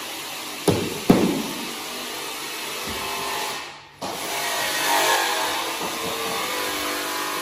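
Cordless nail gun firing twice in quick succession, two sharp bangs about a second in, fixing laminate panels to a wall. A steady mechanical hum runs underneath, and the sound drops out briefly near the middle.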